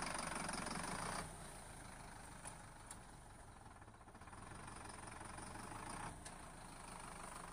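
Sonalika Tiger DI-65 CRDI tractor's four-cylinder common-rail diesel engine idling steadily and faintly, with no knock. It drops a little quieter about a second in.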